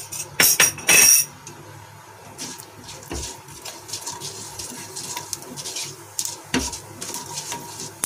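Mustard seeds in hot oil in a non-stick pan, sizzling with scattered crackles while a wooden spatula stirs them. A few loud clinks come in the first second, and dull knocks on the pan come about three and six and a half seconds in.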